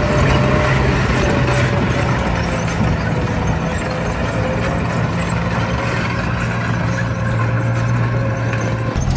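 Heavy vehicle engine running steadily with a low hum, and a thin whine above it that slowly drops in pitch.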